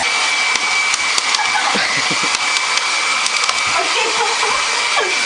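Hair dryer running, a steady rush of blown air with a thin high whine.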